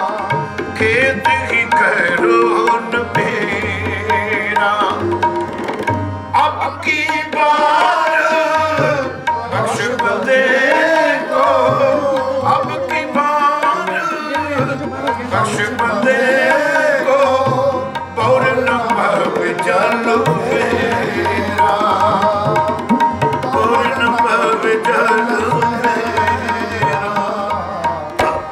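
Sikh kirtan: a tabla plays a running rhythm, with the bayan's low bass strokes booming under it. A harmonium accompanies it, and voices sing over the top.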